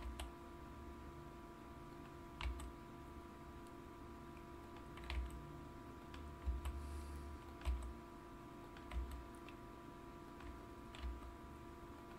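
Occasional clicks of computer keyboard keys and a mouse button, about seven separate taps spread irregularly, over a faint steady electrical hum.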